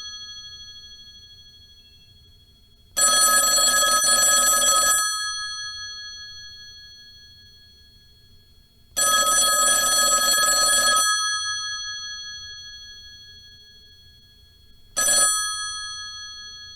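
Telephone bell ringing in two-second bursts about every six seconds, with the bell tones ringing on and fading after each burst. The third ring, near the end, stops after a fraction of a second.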